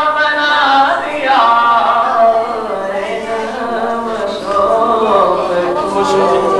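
Unaccompanied male voice singing a devotional naat, drawing out long notes that slide slowly up and down in pitch.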